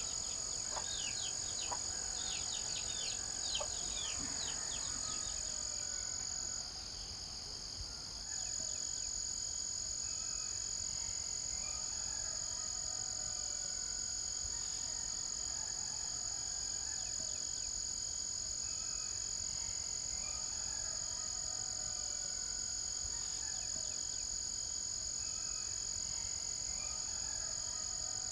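Rural ambience: insects trilling steadily at a high pitch, with birds chirping over it, a quick run of falling chirps in the first few seconds, then scattered calls.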